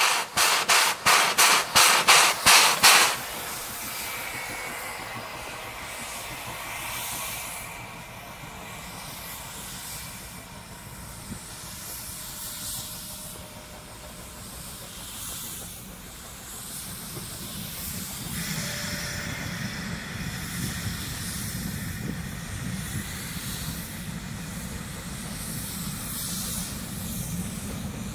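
JS class 2-8-2 steam locomotive at the head of a heavy loaded coal train gives a rapid run of loud exhaust beats, about three a second, that stops abruptly about three seconds in. The engine stays put, which is typical of wheel slip on starting. A steady hiss of steam follows, with a low rumble coming up later.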